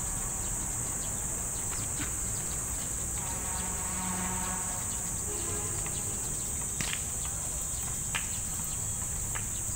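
A steady, high-pitched insect drone that never lets up, over a low outdoor rumble. A faint distant voice comes through about three to five seconds in, and there are two sharp clicks near the end.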